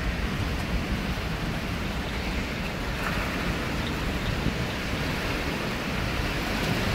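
Strong wind rushing steadily ahead of an approaching bow-echo thunderstorm line, with a low rumble of gusts buffeting the microphone.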